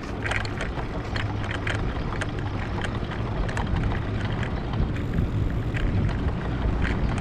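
Wind rumbling on the microphone as a Careem rental bicycle rolls over paving stones, with light rattles and clicks from the bike.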